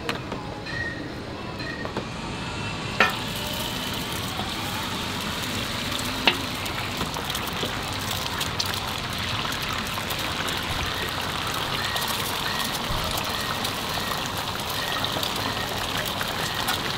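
Beaten egg sizzling on a hot oiled flat-top griddle as it is spread into a thin omelette sheet, a steady frying hiss that fills in about three seconds in. Two sharp knocks stand out, one near the start of the sizzling and one a few seconds later.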